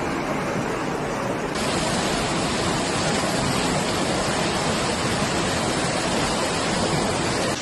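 Muddy floodwater rushing down a street, a steady, even rush of water. About a second and a half in, the sound cuts to another steady rush of water with more hiss.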